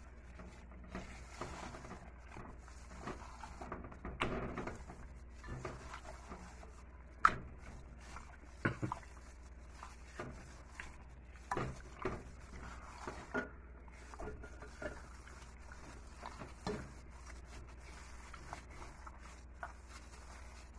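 Plastic-gloved hand mixing marinated pork in a glass bowl: wet rubbing with irregular knocks and clicks against the glass, the sharpest about seven seconds in, over a low steady hum.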